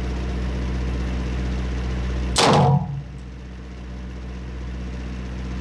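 A single gunshot about two and a half seconds in, the loudest sound, with a short ringing tail, over a steady low hum.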